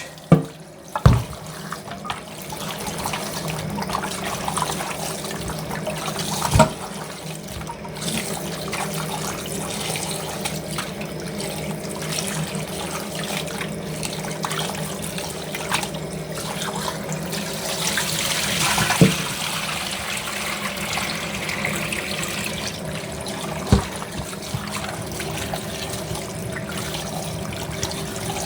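Tap water running into a kitchen sink as raw chicken feet are washed by hand, with a few sharp knocks against the sink.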